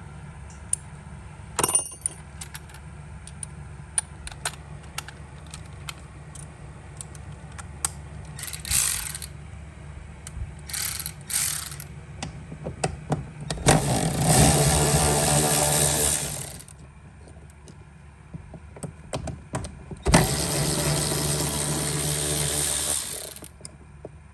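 Tool clicks and small knocks of metal on metal, then a cordless power ratchet's motor runs twice, about three seconds each, starting a little past halfway and again near the end, backing out the door panel's 10mm bolts.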